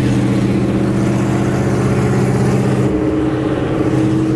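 Cammed Shelby GT500's supercharged V8 running at a steady cruise, heard from inside the cabin. Its note changes about three seconds in.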